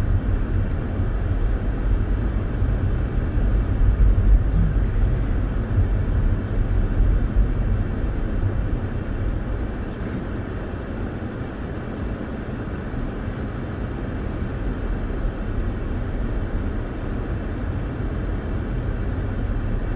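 Steady low rumble inside a moving car's cabin: engine and tyre noise while driving. It is a little louder for the first several seconds, then evens out.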